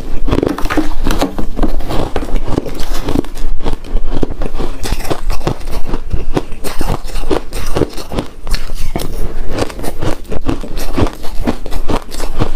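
Close-miked crunching and chewing of refrozen powdery ice: a dense, continuous run of crisp crunches.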